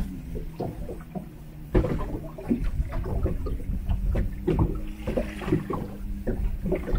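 Water knocking and splashing against the hull of a small inflatable PVC boat in short, irregular strokes, the sharpest about two seconds in, over a steady low hum.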